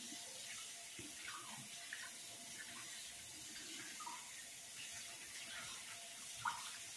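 Kitchen faucet running steadily into a stainless steel sink, with light splashing as raw chicken in a bowl is rinsed under the stream.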